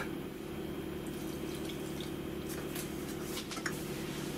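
Milk being poured into a stainless steel saucepan onto the dry sugar and cornstarch, a steady trickle of liquid.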